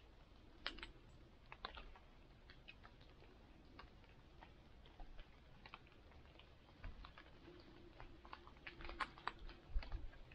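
Faint, scattered crackles and ticks at an irregular pace, coming more often and louder near the end.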